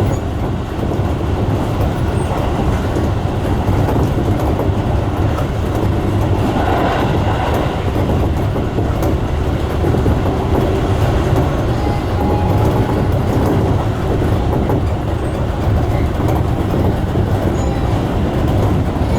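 Electric train running on the Seibu Tamagawa Line: a steady low rumble of wheels on the rails.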